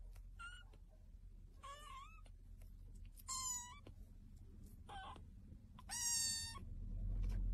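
A young kitten mewing: five short, high, thin mews about a second apart, some wavering in pitch, over a low rumble that swells near the end.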